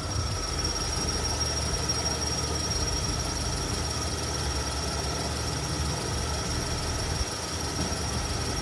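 Lada Vesta engine running with a steady high-pitched whistle from the alternator belt drive. The whistle began when the cold weather set in, and the mechanics blame the alternator belt's pulley.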